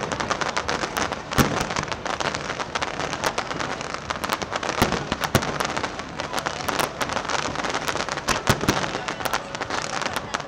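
Fireworks crackling and popping in a dense, irregular stream of rapid small cracks, with a few louder bangs among them.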